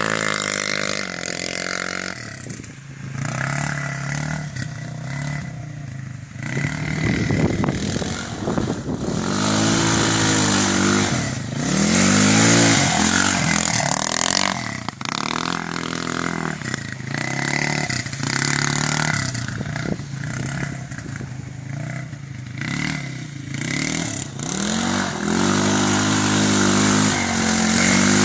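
A vehicle engine revving up and falling back again and again as it is driven hard off-road, with a rushing hiss over the top at the loudest stretches.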